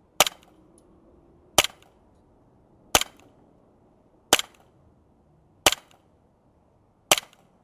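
SIG AIR ProForce M17 airsoft gas blowback pistol firing six single shots on a CO2 magazine, evenly spaced about one and a half seconds apart, each shot a sharp crack with the metal slide cycling.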